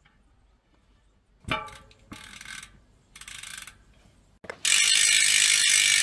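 Reynolds rear hub's freehub pawls ratcheting in a loud, steady buzz as the hub freewheels. The pawls are lightly greased, the loud setting. Before it, a clack and two short rasps as the freehub parts are fitted back into the hub.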